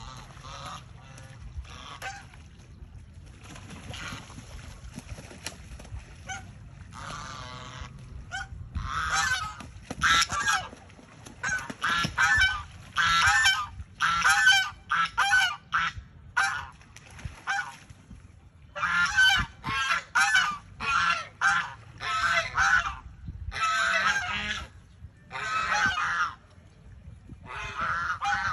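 White domestic geese honking: faint calls at first, then from about nine seconds in a run of loud, repeated honking bouts, each lasting a second or so.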